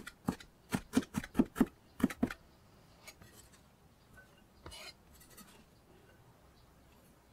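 Kitchen knife chopping onion on a plastic cutting board: quick sharp knocks, about three or four a second, for the first two seconds or so. Then a faint scrape and a short rustle as the chopped onion is pushed off the board into a ceramic bowl.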